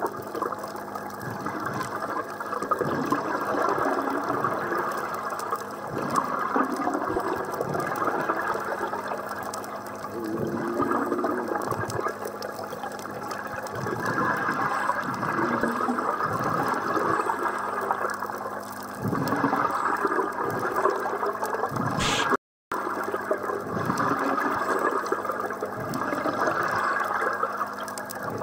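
Scuba regulator exhaust bubbles heard underwater, gurgling in repeated surges as the divers breathe out. The sound drops out for a split second about three-quarters of the way through.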